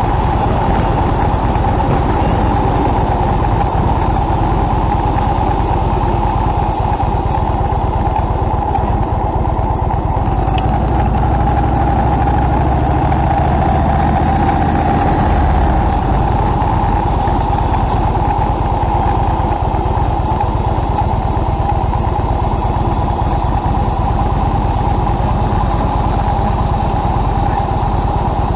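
Motorcycle engine running under way at a steady loudness, its low note shifting in pitch about halfway through.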